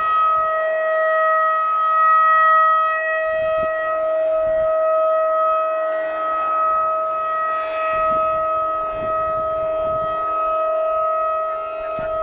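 Federal Signal 2001-DC rotating siren sounding a steady tone at full speed, its single horn turning so the sound slowly swells and fades as it sweeps past.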